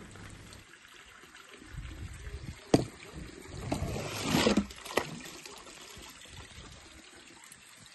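Water splashing and trickling on a wet plastic slide as a small die-cast toy car slides along it. Two sharp clicks come about two seconds apart, with a short, louder rush of water just before the second.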